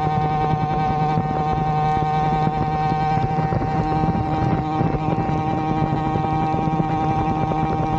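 Motorized bicycle's two-stroke Avenger 85 engine running under way through its repaired Gomax expansion pipe, holding a steady pitch.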